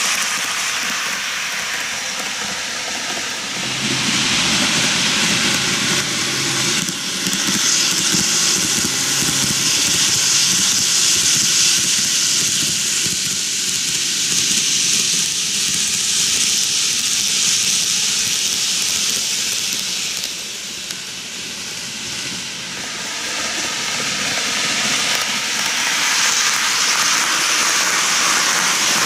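N-gauge model trains, a Kintetsu 80000 series Hinotori and a 23000 series Ise-Shima Liner, running on plastic model track: a steady rolling hiss and rattle of the wheels and motors. It dips briefly about two-thirds of the way through, then grows louder as a train comes close near the end.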